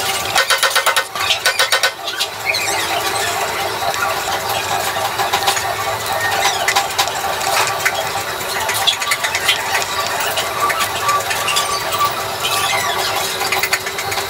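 Chalk scraping and squeaking on a chalkboard as lines are drawn, with a run of quick back-and-forth strokes about a second in.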